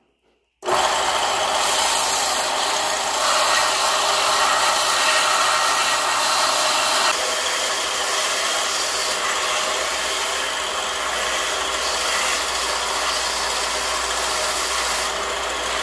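Small bench belt-and-disc sander running, with pencils pressed against the moving sanding belt to grind down their points: a steady, loud grinding whir that starts abruptly about half a second in.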